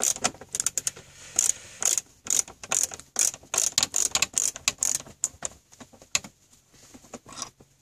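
Ratcheting screwdriver backing out a stereo mounting screw, its pawl clicking on each back-stroke in a quick run of clicks that thins out near the end.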